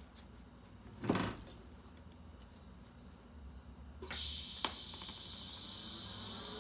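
A TIG welding arc on a cast iron manifold being joined to a stainless V-band strikes with a sharp crack about four seconds in. It then runs as a steady hiss, with a single click shortly after. A brief noisy burst comes about a second in.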